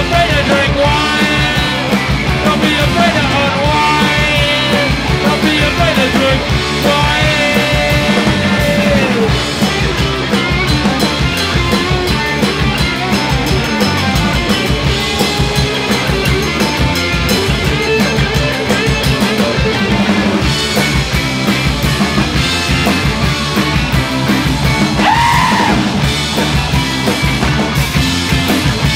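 Punk rock band playing live: electric guitar, bass guitar and a drum kit with cymbals, loud and continuous.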